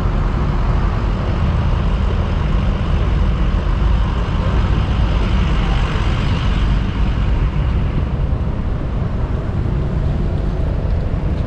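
Steady low rumble of a vehicle driving along, engine and road noise heard from a camera mounted on its hood.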